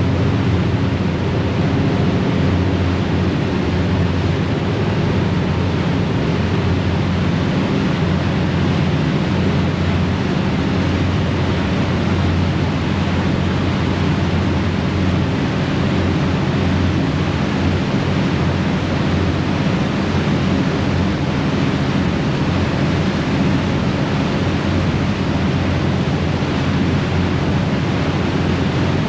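Passenger ferry's engines running steadily at cruising speed, a constant low drone, with the propeller wash churning and rushing in the wake at the stern.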